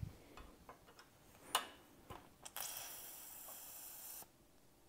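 A few faint clicks, then about two and a half seconds in a short high hiss of air escaping as a QuickJack 5000TLX hydraulic cylinder is bled. The hiss lasts about a second and a half and stops sharply.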